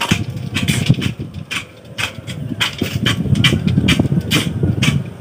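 A hoe scraping and chopping into a pile of sand in quick repeated strokes, about three a second, over a low rumble.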